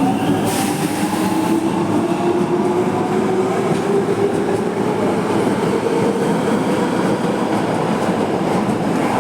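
Osaka Metro 22 series subway train running, its motor whine slowly rising in pitch as it gathers speed over a steady rumble of wheels on track.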